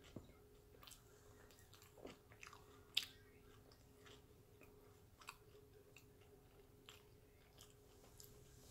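Faint close-up chewing: soft mouth clicks and smacks of someone eating deep-fried food, with one sharper click about three seconds in. A faint steady hum runs underneath.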